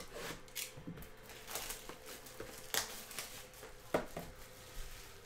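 Plastic shrink wrap crinkling and tearing as it is peeled off a sealed Panini Spectra trading card box: irregular crackles, with a couple of sharper clicks in the middle.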